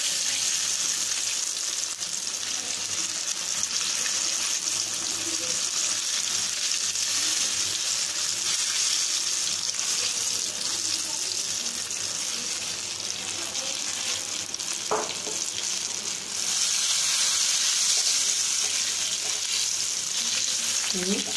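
Batter-coated cauliflower florets (cauliflower bajji) deep-frying in hot oil in a steel kadai, a steady loud sizzle. It grows a little louder about three quarters of the way through, and near the end a slotted ladle stirs and turns the fritters in the oil.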